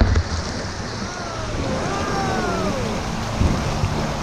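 Shallow river rapid rushing steadily over rocks, with a singing voice over the water noise in the middle.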